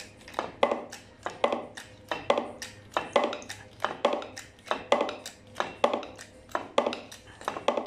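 Hammer tapping on steel: about ten evenly spaced blows, each ringing briefly.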